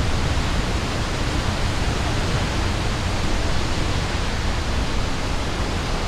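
Rainbow Falls on the Wailuku River: a steady rush of falling water.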